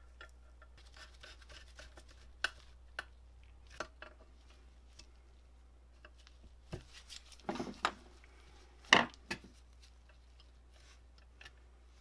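Small metal parts clicking, tapping and scraping as brass switch contact arms are fitted and screwed onto an electromechanical light chaser's metal frame, with a cluster of louder clacks about three-quarters of the way through.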